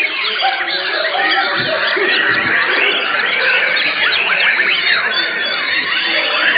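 Many white-rumped shamas (murai batu) singing at once in contest: a loud, unbroken tangle of overlapping whistles, chirps and quick rising and falling glides.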